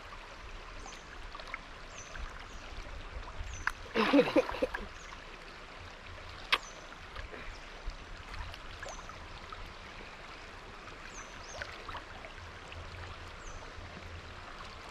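Steady running water of a small stream, with short high chirps repeating every second or two. A brief voice is heard about four seconds in, and a single sharp click a little later.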